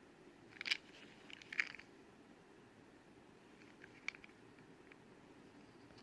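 Small crisp clicks and crackles of die-cast toy cars and their plastic packaging being handled: two short clusters in the first two seconds, then a single sharp click about four seconds in.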